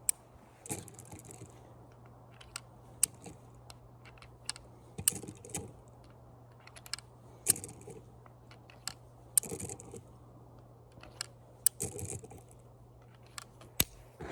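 Irregular sharp clicks, about a dozen spread through the stretch, with short rustling scuffs between them, as of small hard objects being handled.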